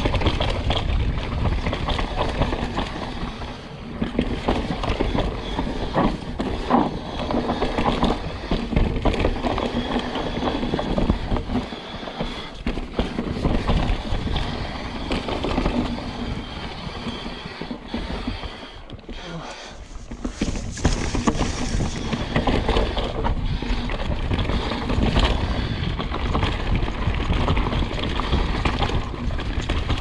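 Mountain bike riding fast down a bumpy dirt trail: tyres rumbling over the ground and the bike rattling over roots and bumps, with wind on the microphone.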